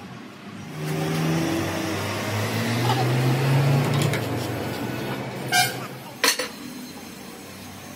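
Steady rushing workshop noise with voices under it, then two ringing metal clanks under a second apart about two-thirds of the way through.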